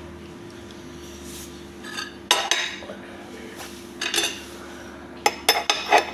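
Metal cutlery clinking against dishes: a couple of separate clinks, then a quick run of several near the end, over a steady low hum.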